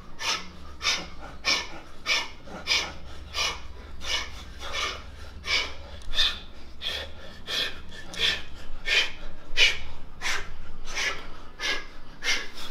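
Hard, rhythmic breathing of two boxers shadow boxing flat out with light dumbbells: short sharp exhales, about two to three a second.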